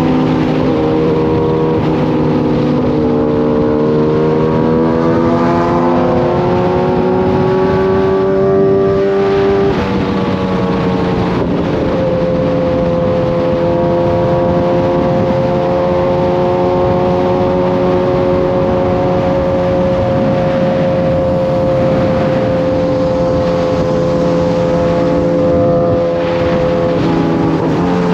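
Sport motorcycle's inline-four engine under way: its pitch climbs steadily for about ten seconds, drops sharply at a gear change, then holds steady at cruising speed, dipping briefly near the end.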